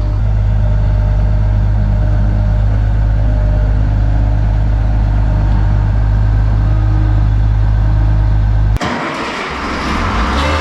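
Case IH 2388 combine's six-cylinder diesel engine running as the combine drives up: a loud, steady, deep hum. It cuts off abruptly about nine seconds in, and music takes over.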